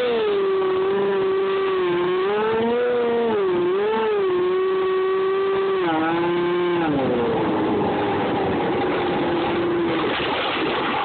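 Electric motor and propeller of a Dynam Hawk Sky RC glider whining in flight, heard from a phone on board. The pitch rises and falls with the throttle, drops about seven seconds in, and near the end the whine fades under a rushing hiss.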